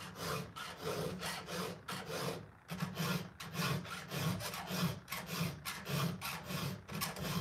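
Chainsaw file rasping across the cutter teeth of a Stihl chainsaw chain in even back-and-forth strokes, about two a second: a quick touch-up sharpening of the chain.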